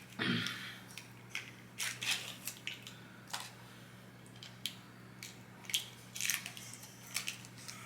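A person chewing food close to the microphone: irregular short crunches and mouth clicks, over a faint steady low hum.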